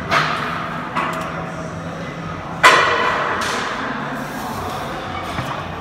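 Metal clanks from a plate-loaded vertical leg press as the lifter handles its weighted carriage: lighter knocks near the start and about a second in, and a sharp ringing clank about two and a half seconds in, the loudest, followed by a smaller one.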